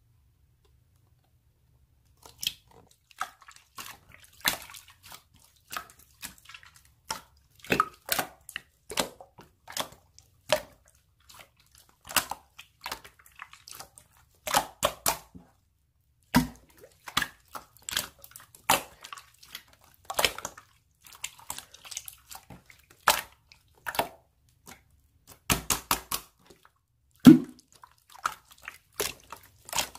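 Slime being squished and pressed by hand, making irregular sharp wet pops and clicks that start about two seconds in.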